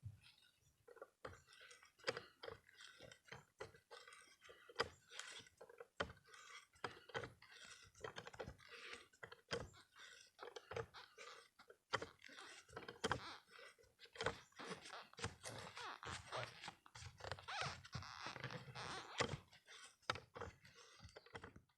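Hand-turned wood auger bit boring into wood: dense, irregular crunching and crackling of wood fibres being cut, busiest in the second half.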